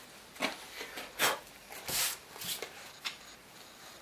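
A machinist vise on a plywood base being brought in and set down on a wooden workbench: a handful of short knocks and scrapes, the loudest about a second and two seconds in.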